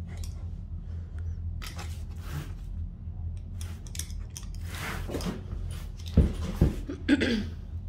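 Utility knife scoring a vinyl floor plank: several short scraping strokes of the blade drawn along marked cut lines. Two low thumps come about six seconds in as the plank is handled.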